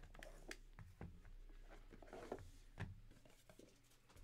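Faint scrapes and soft taps of a cardboard trading-card box being slid open and its pieces set down on a table.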